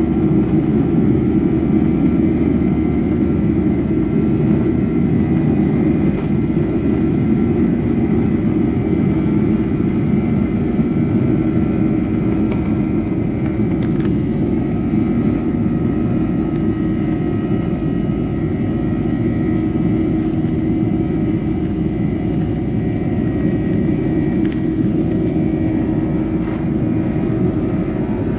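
Boeing 737-800's CFM56-7B turbofan engines running at low power while taxiing, heard inside the cabin over the wing: a steady low drone with faint constant whining tones above it.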